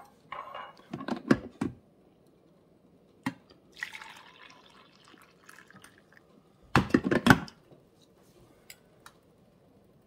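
Hot coffee poured from a glass carafe into a glass mug, a soft filling sound lasting a couple of seconds. Knocks and clinks of the glassware being handled come before it, and a loud clatter follows about seven seconds in.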